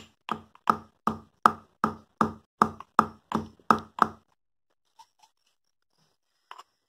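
A stone pestle pounding black pepper and cumin seeds in a small stone mortar: about eleven even strikes, close to three a second, each a sharp knock with a short ring. The pounding stops about four seconds in; a faint tap or two follows, and one more knock comes near the end.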